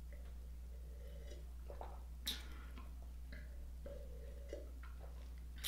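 Faint gulps and swallows of a man drinking red wine from a glass, over a steady low hum.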